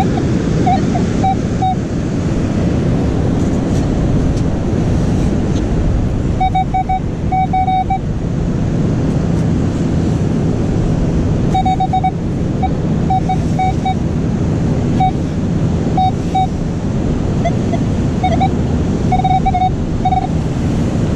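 Surf and wind on the microphone, with a metal detector giving short, repeated beeps on one steady mid-pitched tone in scattered clusters as it is passed over a buried target.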